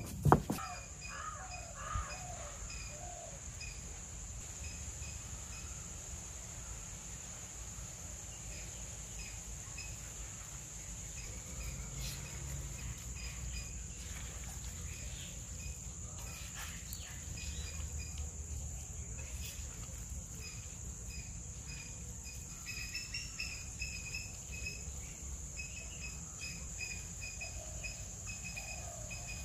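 Rural outdoor ambience: a steady high-pitched insect drone, with a bird repeating short chirps over it and a faint low rumble underneath.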